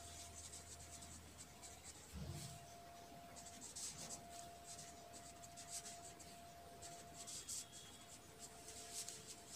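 A pen writing on a sheet of paper: faint, irregular scratching strokes.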